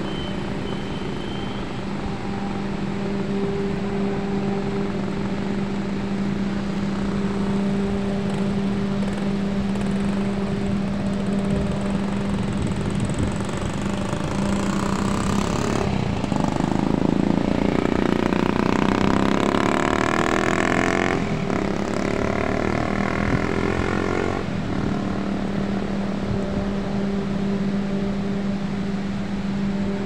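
Steady rush of churning white water across a channel, under a constant low mechanical hum. From about halfway through, a louder engine noise swells for several seconds and fades, as of a motor vehicle passing.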